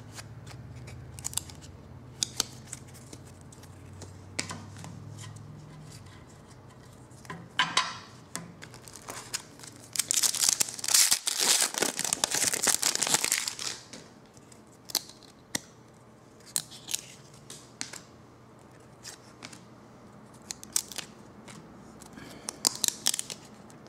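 Trading cards being handled, with scattered small clicks and snaps as they are pulled apart. About ten seconds in, a card pack's foil wrapper is torn open and crinkled for a few seconds, the loudest sound.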